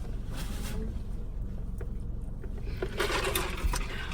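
Steady low drone of the car running, heard from inside the cabin, with a brief rustle about three seconds in.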